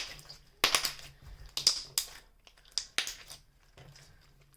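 Stiff, glitter-filled slime being squeezed and pulled in the hands, making about half a dozen short, irregular crackling squishes.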